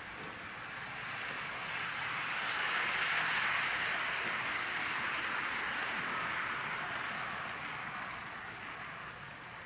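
Kato N-gauge 283 series model train rolling past on the track, its wheels and motor making a steady hiss that swells as it nears and fades as it moves off.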